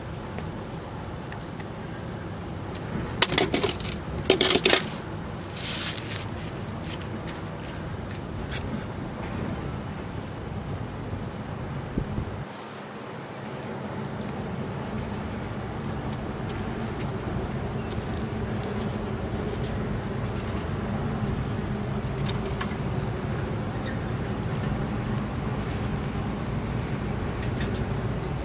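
Night insects trilling in one steady, high-pitched tone throughout, over a low steady rumble. A few sharp knocks and rattles come about three to five seconds in.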